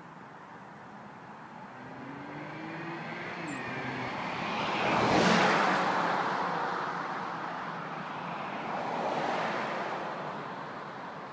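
Porsche Macan Turbo's twin-turbo V6 driving past in Sport Plus mode, its engine note rising as it approaches and dropping in pitch as it passes about five seconds in. A second car passes more quietly a few seconds later.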